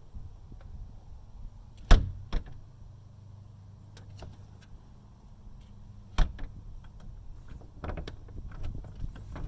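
A door shut twice, two sharp bangs about four seconds apart, with smaller clicks and rattles in between and toward the end, over a low steady hum.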